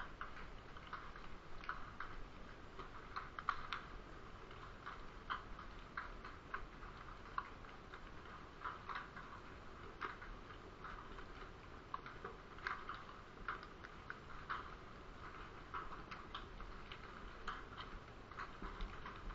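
Underwater crackling: faint, irregular sharp clicks, a few a second and some louder than others, over a low hiss, picked up through a GoPro's waterproof housing.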